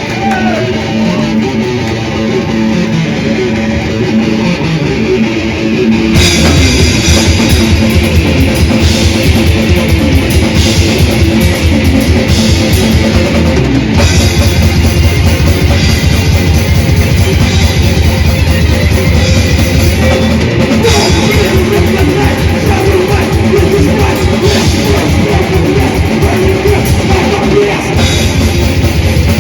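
A death/thrash metal band playing live: distorted electric guitars, bass and a drum kit. About six seconds in the full band hits harder, with dense, fast drumming that carries on to the end.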